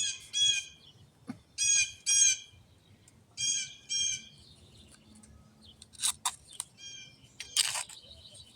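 A bird calling in pairs of short, harsh notes, three pairs about a second and a half apart, then a fainter call; a couple of short scrapes follow, about six and eight seconds in.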